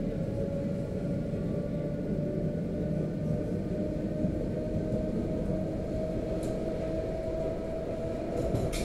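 A suburban electric train heard from inside the carriage, running with a steady rumble and a motor whine that slowly rises in pitch as the train gathers speed. Two sharp clicks come near the end.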